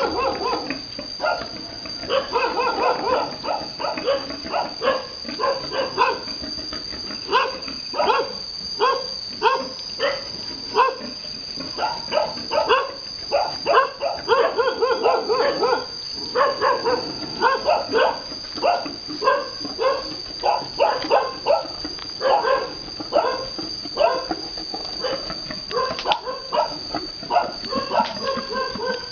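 Boar grunting in a quick, steady run of short calls, two or three a second, as he pursues a sow: the rhythmic courtship grunting of a boar in the mating chase.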